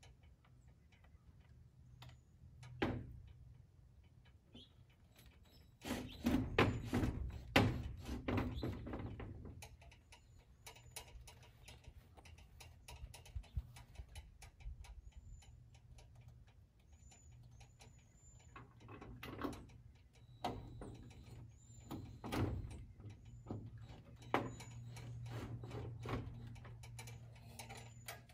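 Irregular knocks, taps and clicks of hand work against corrugated metal barn siding from a ladder, busiest and loudest about six to nine seconds in, over a low steady hum. A few short bird chirps come in the middle.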